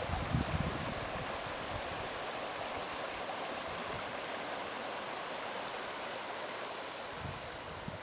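Creek water rushing over shallow rock riffles in a steady rush. Wind buffets the microphone in the first second and again near the end.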